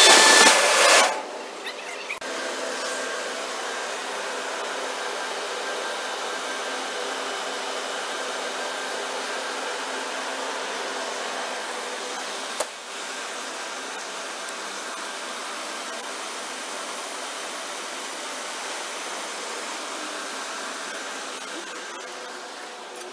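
Loud machinery with a steady whine that drops away about a second in, leaving a steady mechanical whirr with a faint hum, broken once by a sharp click about halfway through.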